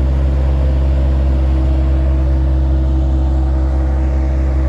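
Bobcat skid-steer loader's engine running steadily, a constant low hum.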